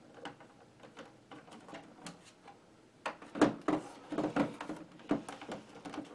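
Plastic knocking and rattling as a side-mounted speaker is worked onto the casing of a Packard Bell CRT monitor: a few faint clicks, then a cluster of louder knocks and rattles about three seconds in.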